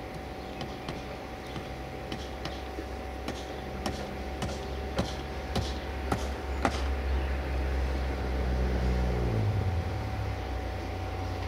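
Heavy diesel truck engine working out of sight, a low drone that grows louder and then drops in pitch about nine seconds in. A run of sharp knocks and clanks comes between about three and seven seconds in.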